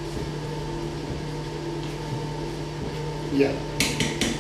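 A spoon working a dry flour mix in a plastic bowl over a steady background hum, then two sharp knocks about half a second apart near the end, as the spoon taps against the bowl.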